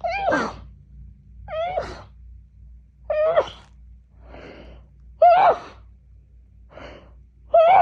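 A woman's rapid sneezing fit: five sharp sneezes in a row, one every one and a half to two seconds, each with a short pitched 'choo' that rises and falls, and fainter catching breaths in between. It is allergy sneezing, which she guesses is fall allergy season.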